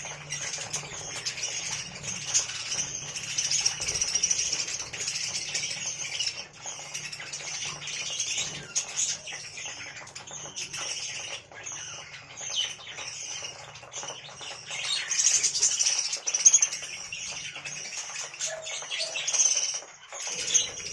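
Budgerigars chirping and warbling continuously, many quick overlapping chirps, over a faint low hum.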